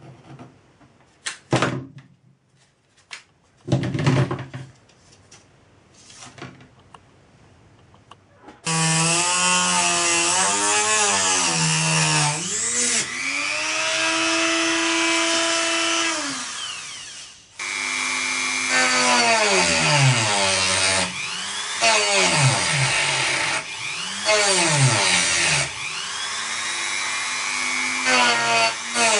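A few light scrapes and taps on a thin metal sheet. About nine seconds in, a handheld rotary tool starts and cuts a slot with a small abrasive cut-off disc. Its high motor pitch sags each time the disc is pressed into the metal and recovers as it eases off, with a brief stop about halfway through.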